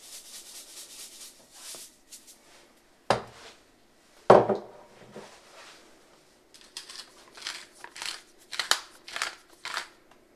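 Salt shaker shaken over a mug in quick rattling strokes, then two sharp knocks, then a large wooden pepper mill twisted in about ten grinding strokes as pepper is ground into the mug.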